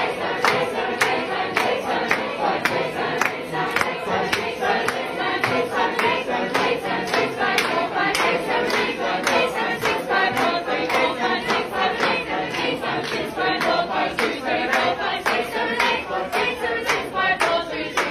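A large group of young voices singing a round in many overlapping parts, sixteen according to the caption, to a steady beat of hand claps about three a second.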